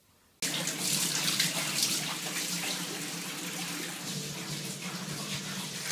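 Water running from a bathtub faucet and splashing into the tub, a steady rush that starts about half a second in.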